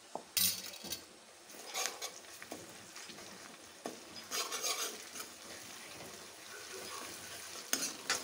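Chopped onion and spices sizzling in hot oil in a metal kadai, with a steel ladle stirring and scraping against the pan in several short strokes.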